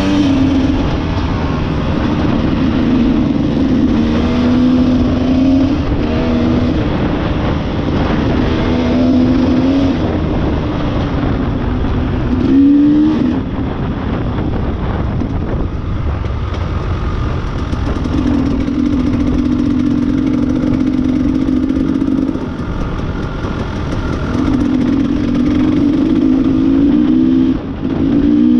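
Off-road motorcycle engine running while riding, its note holding steady, then dropping and rising again several times as the throttle and gears change, over steady rushing noise.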